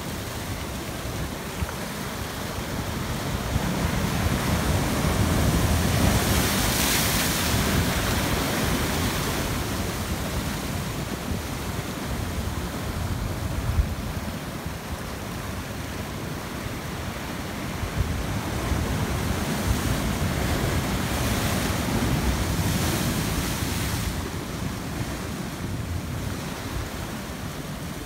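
Sea surf breaking and washing over a low rocky shore, a steady hiss of foaming water that swells twice as bigger waves come in.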